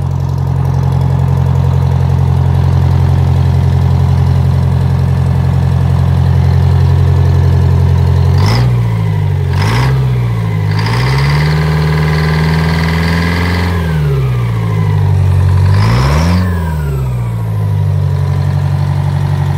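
Detroit Diesel 4-71 two-stroke four-cylinder diesel running on its first start in about 15 years. It idles steadily, then about halfway through is revved up in two quick blips, held at higher speed for a couple of seconds, blipped once more and returned to idle.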